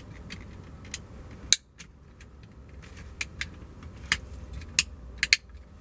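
Light plastic clicks and taps from door-trim clips and the window switch panel being worked into place by hand, with one sharper click about a second and a half in.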